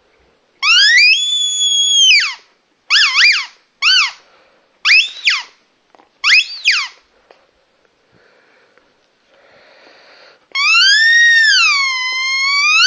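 Plastic squeaker from a dog's squeaky toy, squeezed by hand: a long whistling squeak that rises and then falls, a handful of short warbling squeaks, a faint hiss of air, and then a long squeak that wavers down and up in pitch starting about ten and a half seconds in.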